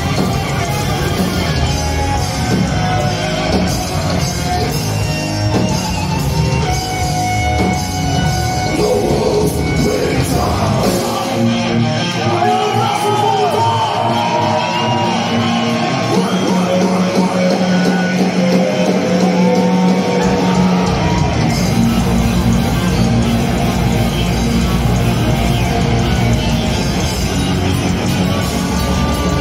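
Heavy metal band playing live and loud: distorted guitars and drums with shouted vocals. For about ten seconds in the middle the bass and kick drum drop out, then the full band comes back in.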